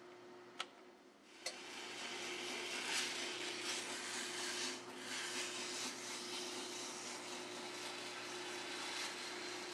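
Drill press running with a steady hum while a strip of abrasive sanding belt is pressed against a small metal part spinning in its chuck, giving a rough rubbing hiss that grows louder about a second and a half in. Two sharp clicks come just before the rubbing starts.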